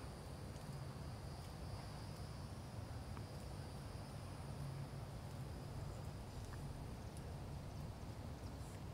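Faint outdoor ambience: a steady, high-pitched insect trill over a low, steady hum, with a few faint ticks.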